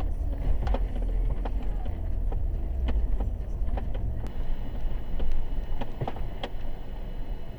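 Truck driving, heard from inside the cab: a steady low road rumble with frequent small clicks and rattles. The rumble eases a little about halfway through.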